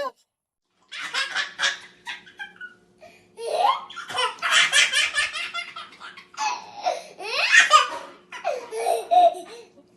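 Hearty laughter in repeated bursts, starting about a second in after a moment of silence.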